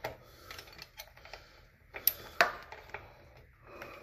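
Socket ratchet clicking in short runs as a bolt is run in, with two sharper metallic knocks about two seconds in.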